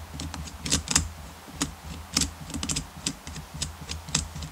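Small, irregular clicks of a thin flathead screwdriver turning the main jet out of a Honda pressure washer's carburetor, the screwdriver tip and the carburetor body ticking against each other as the jet is unscrewed. A low steady hum runs underneath.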